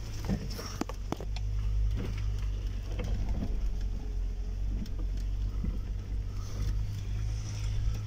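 Four-wheel-drive vehicle's engine droning steadily inside the cab as it drives over a rough, rutted dirt track. Sharp knocks and rattles come from the vehicle jolting over the ruts, several in quick succession about a second in and a few more scattered after.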